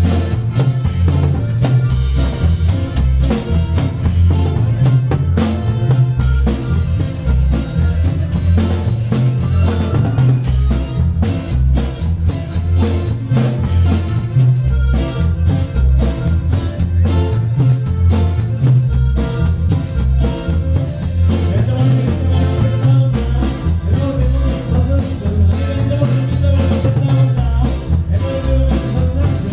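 Norteño group playing dance music through the PA: a steady beat with drums and a prominent, pulsing bass line.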